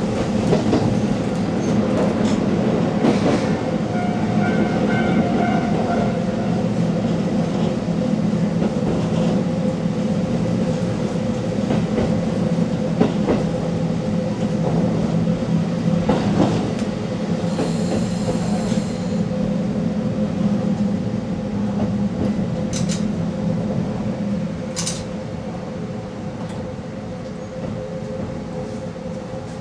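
KiHa 40 diesel railcar heard from inside the cab: the engine drones steadily and the wheels click over the rail joints. A brief high squeal comes about two-thirds of the way through, and the sound eases off near the end as the train comes alongside a station platform.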